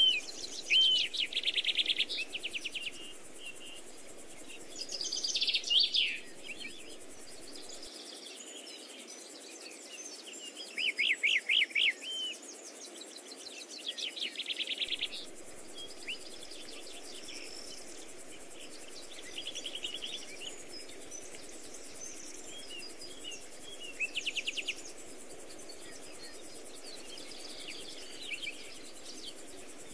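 Small songbirds singing short, rapid trilled phrases every few seconds, the loudest at the start and around 5, 11, 14 and 24 seconds in, over a steady faint background of outdoor noise.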